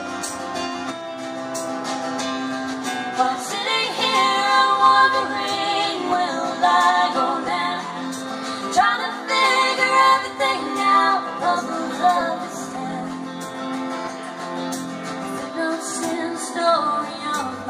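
Live acoustic folk-pop band music: strummed acoustic guitars with female voices singing, the singing strongest in the middle.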